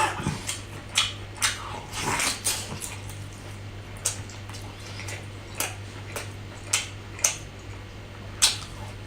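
Close-miked eating: irregular wet smacks and clicks of chewing and lips, over a steady low electrical hum.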